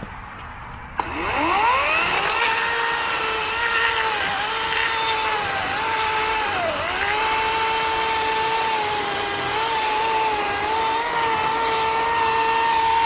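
EGO 18-inch 56-volt battery chainsaw cutting into a log. About a second in, its electric motor spins up with a quickly rising whine. It then runs as a steady whine whose pitch sags briefly a few times near the middle as the chain bites into the wood.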